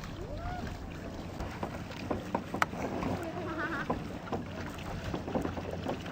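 Kayak paddling on calm water: paddle strokes splashing, with occasional short knocks, over wind noise on the microphone.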